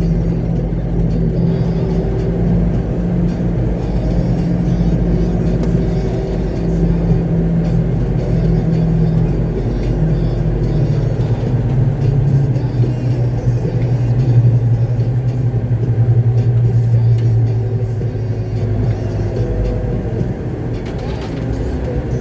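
Concrete mixer truck's engine running, heard from inside the cab while driving, its low drone shifting pitch a few times, with music playing underneath.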